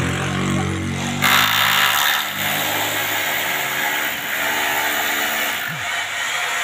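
A small engine or motor running steadily, with a loud burst of hiss about a second in.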